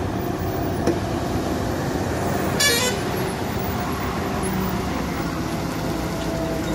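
Heavily loaded lorry's diesel engine running as it crawls round a tight hairpin bend. There is a short, sharp burst about two and a half seconds in.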